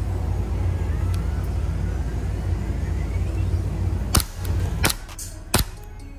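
A steady low rumble, then three sharp shots from a gas blowback airsoft pistol about two-thirds of a second apart, starting about two-thirds of the way in; the rumble drops away after the second shot.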